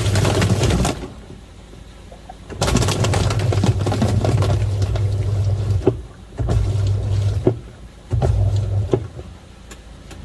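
Twin-tub washing machine's wash tub churning water and toothpaste foam, its motor humming in bursts of one to three seconds with short pauses between, four times, as the agitator turns one way and then the other.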